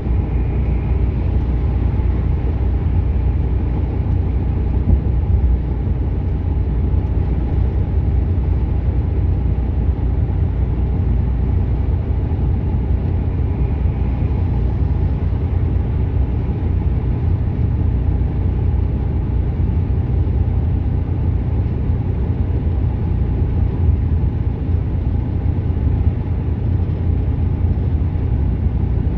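Inside a lorry's cab at motorway cruising speed: the diesel engine's steady drone and the rumble of tyres on the road, heavy and deep, holding constant throughout.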